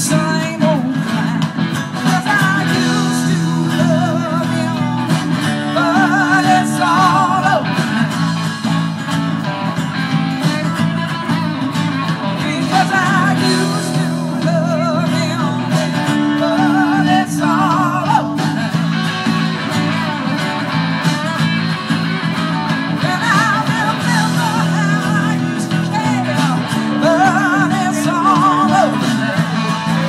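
A live band playing, with electric guitar and bass under a singer whose phrases come every few seconds with a strong wavering vibrato. It is heard from out in the audience through a phone's microphone.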